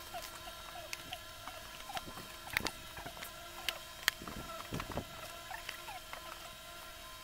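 Cardboard firework fountain cones being handled and set down one by one on a tile floor, with a few sharp knocks and light rustling. Faint short squeaks come again and again in the background.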